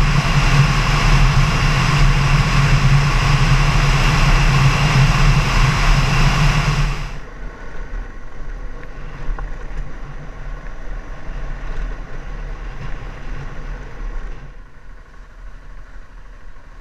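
Motorcycle engine running at road speed under heavy wind noise on the microphone. About seven seconds in the sound drops suddenly to a quieter engine and road noise, and drops again near the end.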